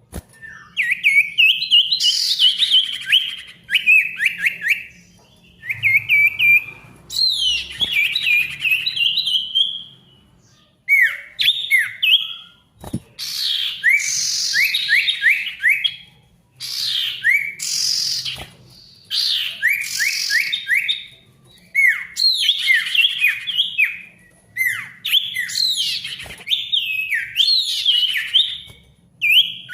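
Male sirtu songbird singing busily: phrase after phrase of fast, rapidly repeated sharp chirping notes, each burst lasting a second or two with short pauses between.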